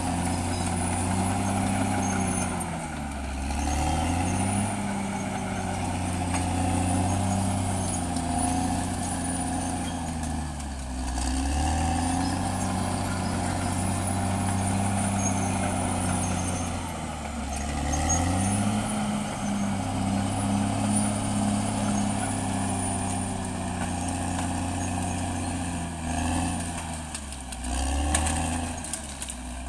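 Caterpillar D6R XL bulldozer's diesel engine running hard, its note sagging and climbing back four times as it works the blade, with a faint high whine over it.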